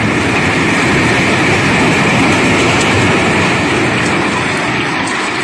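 Cobblestones pouring in a steady stream during barge unloading: a loud, continuous, dense rattle of rock on rock.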